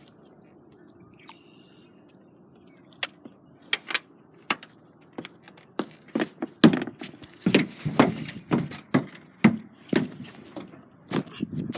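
Irregular knocks and thunks, a few scattered ones at first, then a rapid, uneven run of louder ones over the second half.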